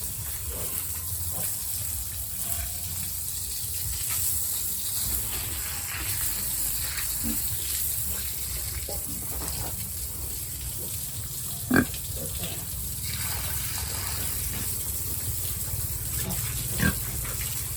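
Pigs grunting, with short sharper cries here and there over a steady low rumble. One brief loud cry stands out about twelve seconds in, and a smaller one comes near the end.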